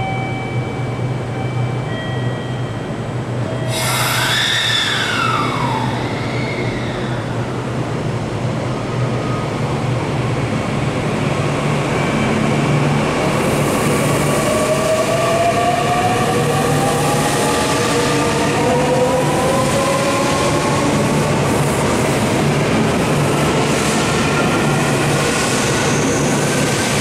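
JR Central 315 series electric multiple unit pulling away from a platform: over a steady hum, its traction inverter whine climbs steadily in pitch from about halfway through as the train accelerates from a standstill, with rising wheel and rail noise. A short tone that rises and then falls is heard about four seconds in.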